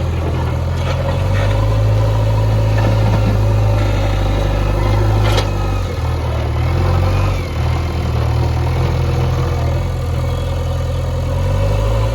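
JCB backhoe loader's diesel engine running steadily, with its load shifting slightly a few times. There is a single sharp knock about five seconds in.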